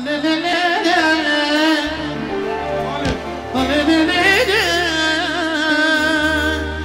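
Live Balkan Roma band music with a man singing into a handheld microphone: ornamented, wavering vocal lines over a steady bass.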